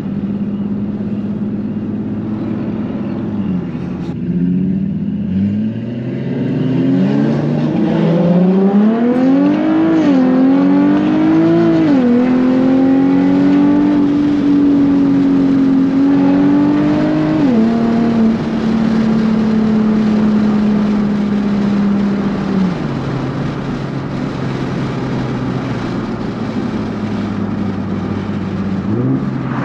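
A sports car engine under way, accelerating hard with its note climbing in steps and briefly dipping at gear changes. It then holds a steady high note, drops twice as it settles into higher gears, and rises sharply again near the end.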